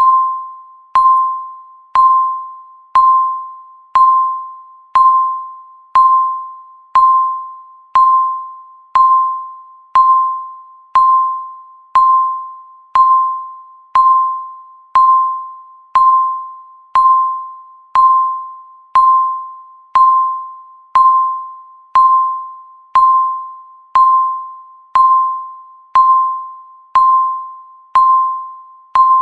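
Countdown timer beep: a short electronic tone once every second, each sharp at the start and fading out before the next, marking each passing second of the count.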